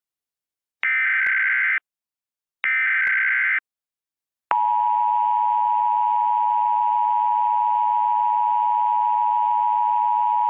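Emergency Alert System tones: the end of one SAME header burst, then two more one-second bursts of warbling digital data tone. About a second later the steady two-tone EAS attention signal starts and holds.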